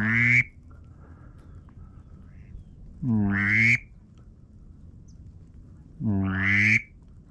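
A hunter's duck call blown in three long, drawn-out quacks about three seconds apart, each rising in pitch, calling a circling duck back toward the blind.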